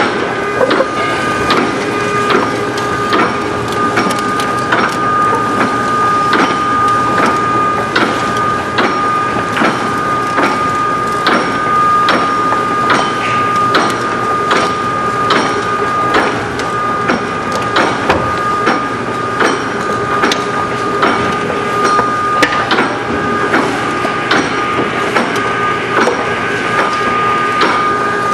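Baler in-feed conveyor, driven by a 7.5 horsepower three-phase electric motor, running steadily: a constant mechanical whine with frequent irregular clacks and knocks.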